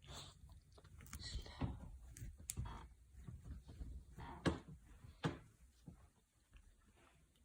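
Scattered soft knocks, clicks and rustling at irregular spacing, the sharpest knock about four and a half seconds in and another a second later.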